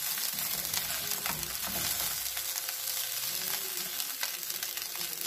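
Egg fried rice sizzling in a nonstick kadai while a wooden spatula stirs and turns it, with small scrapes and taps of the spatula against the pan.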